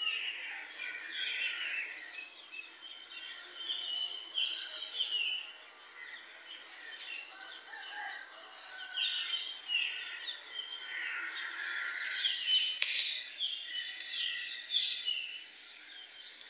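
Birds chirping: many short, quick calls overlapping throughout.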